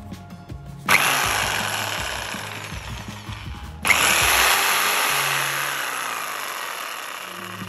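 Okatz JS100-QL 750 W top-handle jigsaw motor and blade running with no load. It switches on suddenly about a second in, cuts off briefly just before the four-second mark, then starts again and keeps running, easing off a little in level after each start.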